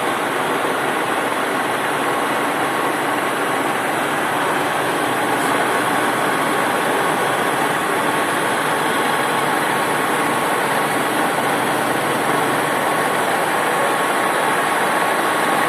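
Milling machine running steadily while cutting slots: an even machine noise with a thin, steady whine.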